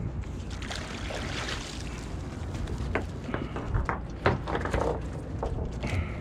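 Water splashing as a summer flounder is scooped into a landing net beside a boat, over a steady low rumble, with several sharp knocks in the middle.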